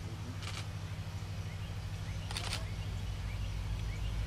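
Diesel locomotive engine rumbling steadily as it approaches, growing slightly louder. Two short high-pitched chirps cut through it, one about half a second in and one about two and a half seconds in.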